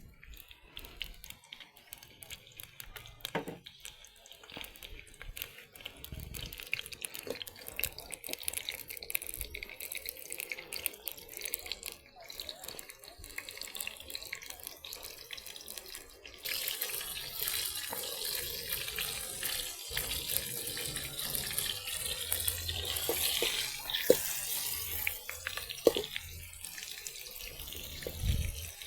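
Water running and splashing into a sink or basin, as in washing up, getting louder and fuller about halfway through, with a couple of sharp knocks later on.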